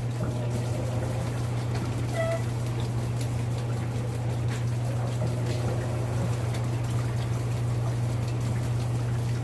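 Water trickling into a Sharp automatic washing machine's tub over a steady low hum.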